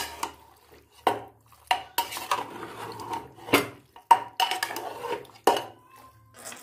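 Metal spoon stirring chunks of pork and bamboo shoots in a metal pressure-cooker pot, with irregular clinks, knocks and scrapes of spoon on the pot's sides, about a dozen over a few seconds.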